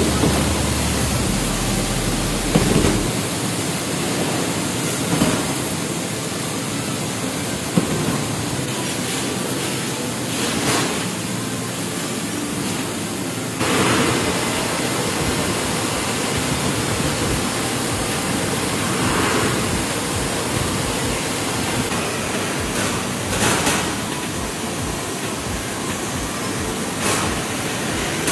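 Water jets spraying hard onto coconuts as they tumble through a stainless-steel washing machine, a steady rushing hiss with a few short knocks.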